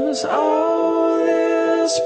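A song: a singer slides into one long held note just after the start and sustains it.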